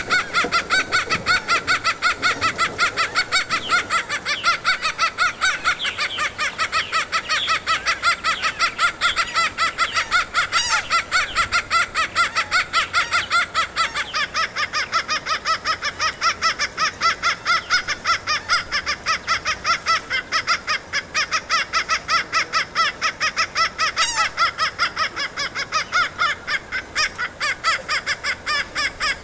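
A male laughing gull gives its copulation call while mounted on the female: a rapid, steady series of short, nasal calls at about three to four a second.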